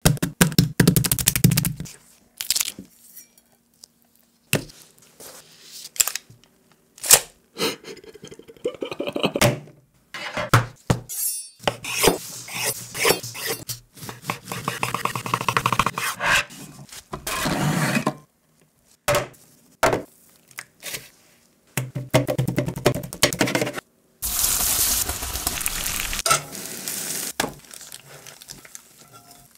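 A run of close-up cooking sounds in quick succession, broken by short gaps: a knife cutting through bread on a wooden cutting board, pans and utensils knocking and scraping, and stretches of frying sizzle.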